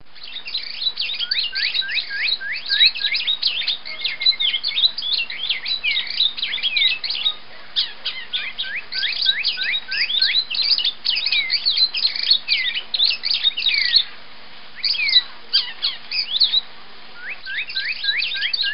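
Birds chirping in a dense chorus of quick, falling chirps, with short pauses, over a faint steady hum.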